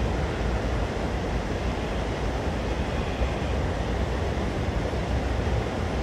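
Steady rushing background noise, heaviest in the low end, with no distinct calls or other events standing out.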